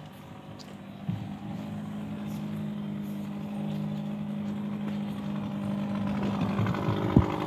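Boat's motor running steadily, growing louder over the last few seconds, with a couple of sharp knocks near the end.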